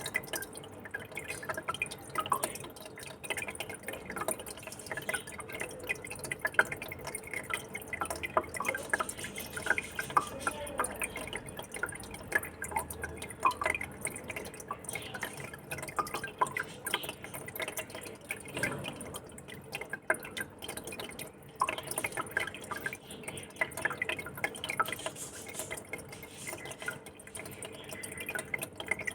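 Aquarium water trickling and bubbling: a steady, irregular patter of small drips and pops, over a faint steady hum.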